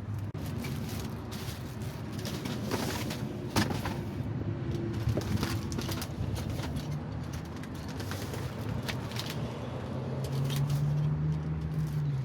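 A pigeon or dove cooing over a steady low hum, with scattered clicks and rustles.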